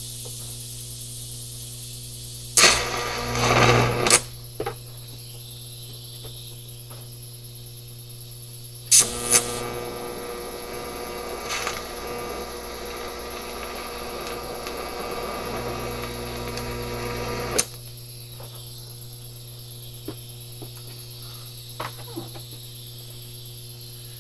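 TIG welding arc on a tungsten that the welder says is contaminated. A short crackling burst comes about three seconds in. A sharp start near nine seconds leads into a steady hissing arc for about eight seconds, which cuts off suddenly. A steady electrical hum runs underneath throughout.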